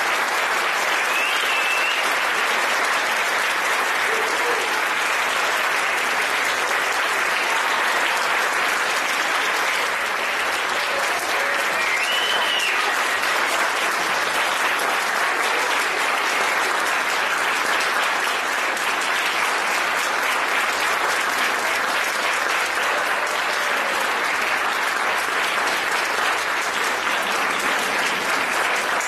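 Audience applauding steadily at the end of a string orchestra performance.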